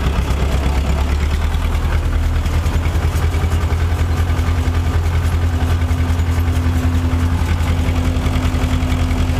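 Tractor's diesel engine running steadily while pulling a round baler that is picking up a windrow, with a fast, even engine pulse. A steady higher hum joins about two seconds in and grows stronger about four seconds in.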